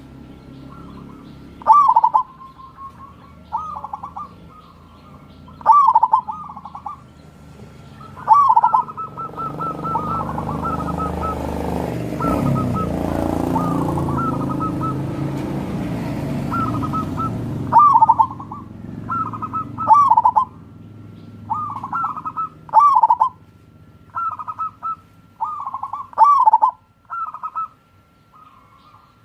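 Zebra doves (perkutut) cooing: short rolling coo phrases repeated every second or two. A broad rushing noise swells for several seconds midway, then fades as the cooing picks up again.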